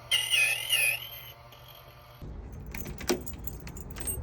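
A high, wavering squeal lasting about a second, then keys jangling and clicking against each other and the lock.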